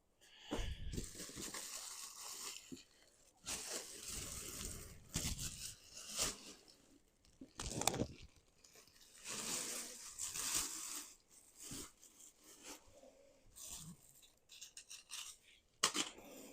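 Packaging rustling and crinkling in irregular bursts as statue parts are unwrapped and handled, with a few short sharp clicks.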